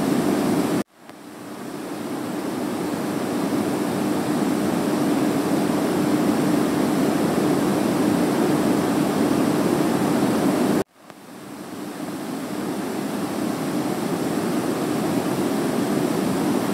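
Steady rushing noise with a faint low hum under it. It cuts out abruptly about a second in and again about eleven seconds in, each time fading back up over a few seconds.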